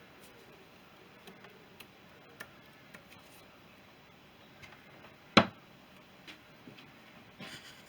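Scattered light clicks and taps at uneven intervals, with one loud sharp click about five seconds in and a short run of clicks near the end.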